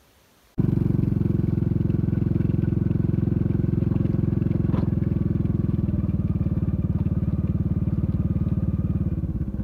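Motorcycle engine running steadily while riding along a dirt trail, coming in abruptly about half a second in.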